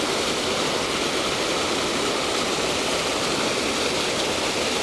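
Water rushing from a sewer plant's spillway outlet into a creek pool, a steady, even sound of falling water.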